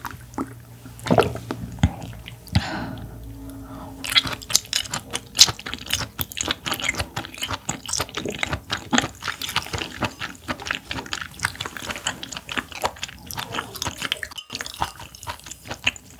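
Close-miked wet chewing of raw clam meat: rapid, moist mouth clicks and smacks, sparse at first and then dense and continuous from about four seconds in.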